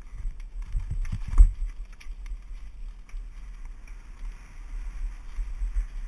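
Mountain bike descending a rough dirt trail: tyres and frame rattling over the ground with wind buffeting the microphone, and a few heavy thumps about a second in as the bike hits bumps.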